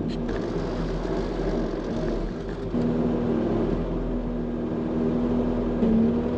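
Farm vehicle engine running steadily, with a higher steady whine coming in under load about a third of the way through.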